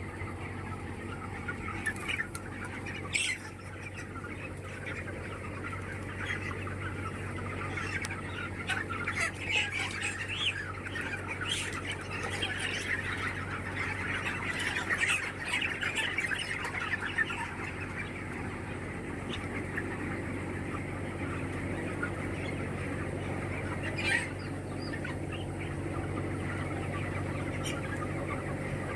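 A flock of chickens clucking and squawking together: a dense, continuous chatter of short calls, busiest in the middle. A steady low hum runs underneath, and a couple of sharp clicks stand out.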